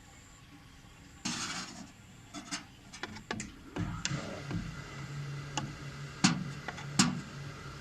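Clicks and knocks of something being handled and set up, then a small electric fan motor starts and hums steadily, with two sharp clicks near the end.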